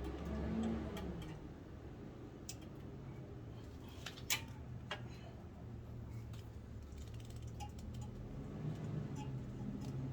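Scattered light metallic clicks and taps from hands fitting parts on a car's front brake caliper, with one sharper click about four seconds in, over a steady low hum.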